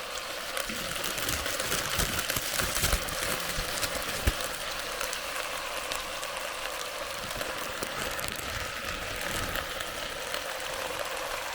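Chicken frying in rendered fat in a cast iron pot, a steady sizzle. A few sharp knocks and clatters in the first half, as food or a utensil hits the pot.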